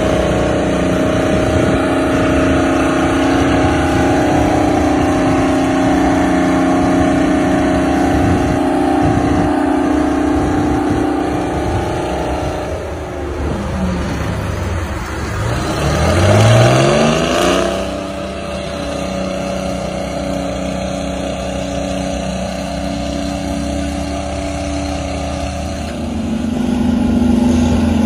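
Old Euclid off-highway dump truck's diesel engine running under load with a steady note. About halfway through, the engine note sinks and then climbs sharply as it revs up, then settles back to a steady run.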